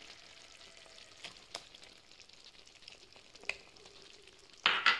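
A drumstick and tomato curry, cooked nearly dry, sizzling faintly in a pan, with a few light clicks of a spoon. Near the end comes a louder, brief scrape of the spoon as the ground coconut-spice paste is pushed into the pan.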